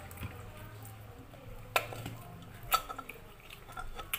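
A person eating by hand and chewing, with a few sharp wet mouth clicks about a second apart over a low steady hum.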